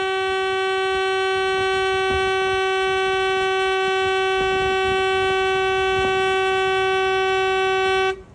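Car horn held down in one long, steady note that cuts off abruptly near the end.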